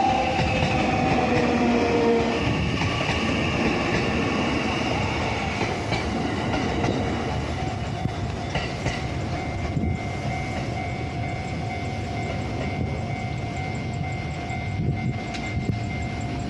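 JR Central 315 series electric train running past on the rails with wheel and rail noise, its motor whine falling slightly in pitch over the first few seconds as the sound slowly eases. From about halfway a steady ringing tone from the level crossing's warning bell holds on.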